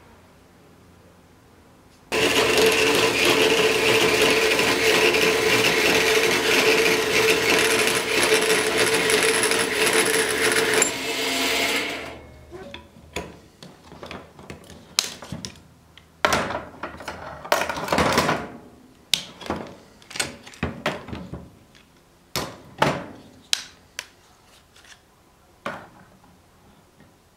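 A power tool starts about two seconds in and runs loud and steady, with a constant whine, for about ten seconds before stopping. Then come scattered clicks and knocks of metal tools and parts being handled on a workbench.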